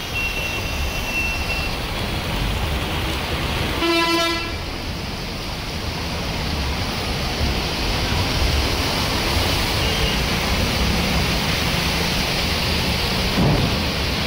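Road traffic driving through floodwater: a steady rush of water and tyre noise, with a vehicle horn sounding once, briefly, about four seconds in.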